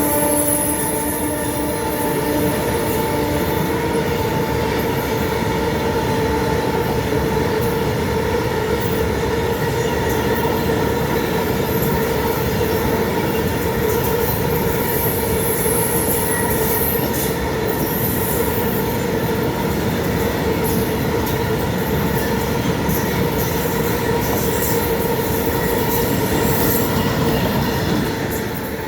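A long freight rake of BTPN bogie tank wagons rolling past at speed, with a steady rumble and a continuous squeal from the wheels on the rails, plus a few higher squeals. The last of the diesel locomotive's horn note dies away in the first two seconds.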